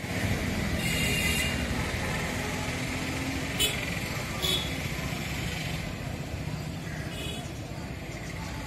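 Bus engine idling at a bus stand, a steady low rumble, with a couple of short sharp sounds around the middle and faint voices.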